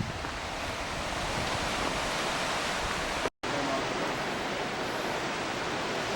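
Steady rushing roar of ocean surf breaking on the shore, with a split-second dropout to silence about halfway through.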